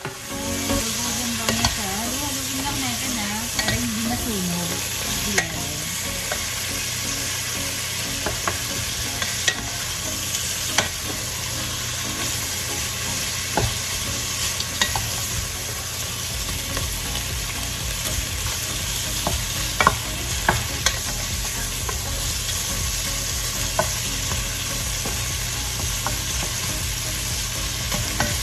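Pork pieces sizzling steadily as they fry in their own rendered fat in a pan, stirred now and then, with scattered sharp clicks and pops from the utensil against the pan and spattering fat.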